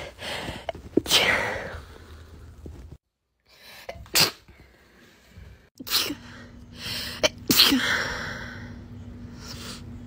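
A woman sneezing several times in quick succession across separate short takes. Each sneeze is a sudden loud burst that trails off, with the loudest about a second in and at about seven and a half seconds.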